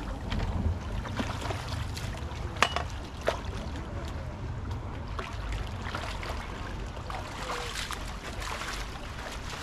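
Water splashing and lapping as a hooked chum salmon thrashes at the surface by the shore, over a low wind rumble on the microphone. Two sharp clicks come about three seconds in, half a second apart.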